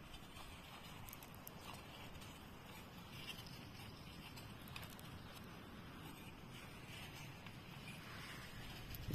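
Faint scratching and light ticks from hands working a long wooden stick, over a quiet outdoor background.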